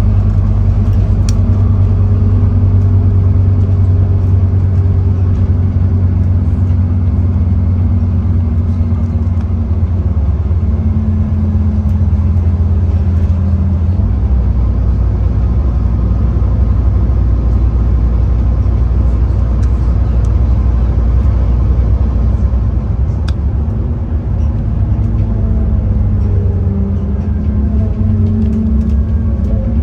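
Scania N230UD OmniCity bus's five-cylinder diesel engine running under way, heard from inside the bus. Its note steps down about halfway through and rises again near the end.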